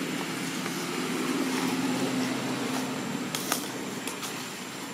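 Low engine hum of a motor vehicle, swelling about a second in and then fading, with a couple of sharp clicks about three and a half seconds in.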